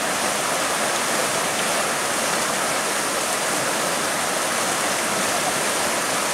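River water rushing steadily over a shallow riffle of rapids.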